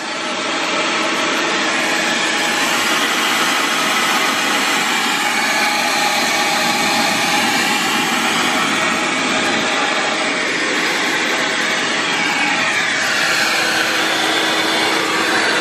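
Portable wet/dry shop vacuum running steadily at full power, fed from a power inverter wired to a 12-volt battery.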